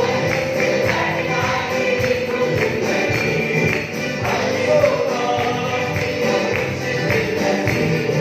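Arabic Christian praise song: voices singing together over instruments with a steady percussive beat.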